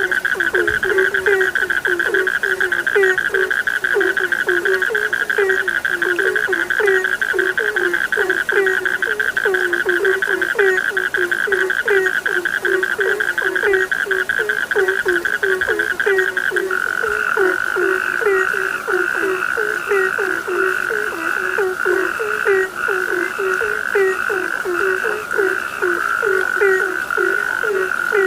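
Chorus of frogs calling: low croaks repeating about three times a second over a steady high, fast trill, which shifts slightly lower and smoother about two-thirds of the way in.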